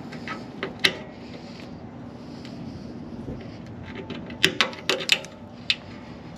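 Sharp metallic clicks of a steel exhaust-hanger extension spring and needle-nose pliers as the spring's end hook is worked onto the hanger: one click about a second in, then a quick run of several clicks a few seconds later.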